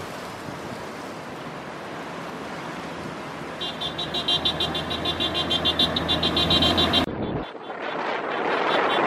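Road vehicle engines running steadily with road and wind noise. From a little over a third of the way in, a rapid pulsing high buzz joins, stopping abruptly at a cut, after which wind buffets the microphone and grows louder.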